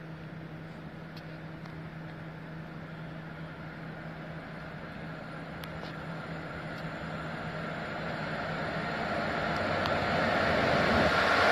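Freight train hauled by an electric locomotive approaching along the through track, its running noise growing steadily louder and loudest near the end.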